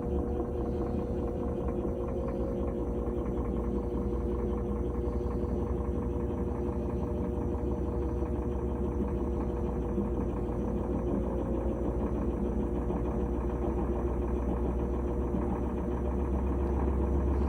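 GE top-load washing machine running after its new lid switch was fitted: a steady motor hum with one held tone, growing a little louder near the end.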